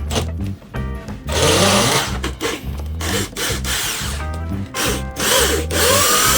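A power tool running in short spells, its whine wavering in pitch, then running steadily with a rising whine near the end, over background music with a steady beat.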